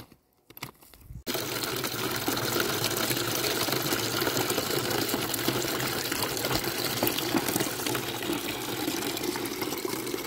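Spring water gushing steadily from a pipe in a stone wall and splashing into a stone channel, starting suddenly about a second in. Before it, a faint knock or two from a pickaxe striking dry ground.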